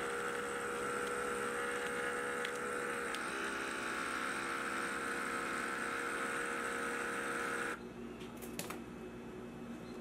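Sausage Maker handheld vacuum sealer pump running with a steady motor whine as it draws the air out of a reusable zipper bag through the bag's valve. It cuts off suddenly about eight seconds in, followed by a few light clicks.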